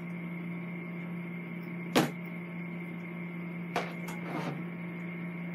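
A steady electrical hum, with a sharp click about two seconds in and a lighter click a little before four seconds, from handling begleri beads and cord while threading the cord through them.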